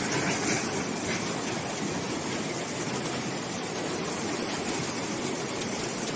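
Steady rushing noise of floodwater, an even wash with no distinct events.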